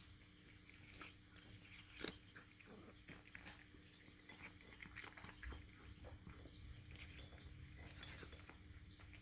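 Cat eating soft food from a slow-feeder bowl: faint, irregular small chewing clicks and smacks, the loudest about two seconds in, over a faint steady hum.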